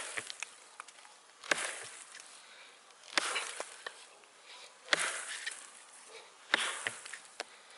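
Wild Fields Forge 'Leshy' hatchet, a small axe of just under a kilogram, chopping into a dry fallen pine log about 15 cm thick. There are four strikes, roughly every second and a half to two seconds, each a sharp hit followed by a brief rustle.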